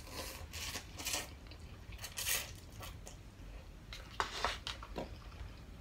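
Slurping instant spicy ramen noodles from a cup, about half a dozen short wet slurps and mouth noises, the loudest a little past the middle.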